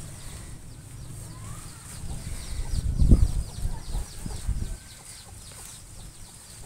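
Chickens clucking in the background, with a few low thumps and rustling from bamboo strips being worked by hand against a wooden stake, the loudest thump about three seconds in.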